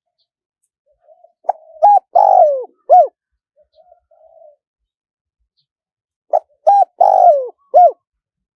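Spotted dove singing its coo song twice. Each phrase is a short note and a coo, then a longer rolling coo that falls in pitch, ending on a final coo, with soft low notes between the phrases.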